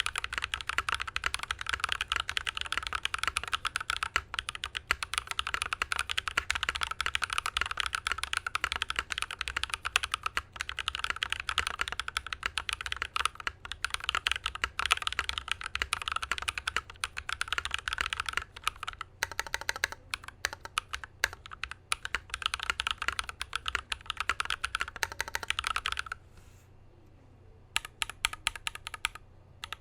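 IDOBAO ID80 mechanical keyboard with lubed, filmed Holy Panda tactile switches and PBT keycaps, typed on fast and continuously: a dense stream of key strokes. About three quarters of the way through the typing stops briefly, then starts again.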